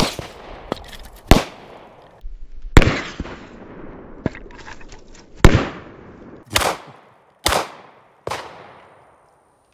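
Glock 19 9mm pistol firing about seven shots, spaced roughly a second apart, each crack trailing off in a short echo.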